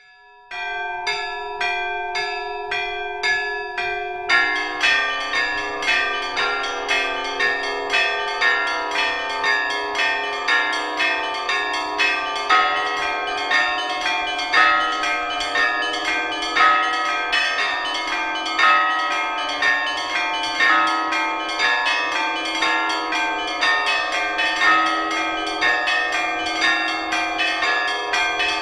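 Church bells ringing: for the first few seconds a few small bells are struck in turn, then about four seconds in a lower bell joins and a full peal of many bells rings on, with a heavy stroke about once a second under the quicker chimes.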